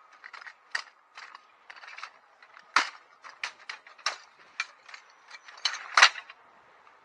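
A quick, irregular run of sharp clicks and clacks, about fifteen in all, the loudest about three seconds in and again near the end.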